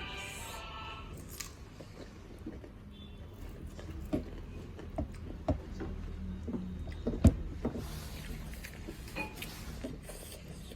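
Close-up eating sounds: chewing and wet mouth smacks on millet dhido and chicken curry, with scattered small clicks. The loudest is a single sharp click a little past the middle.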